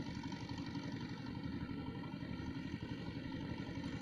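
A small engine running steadily at a constant speed, with a fast, even throb.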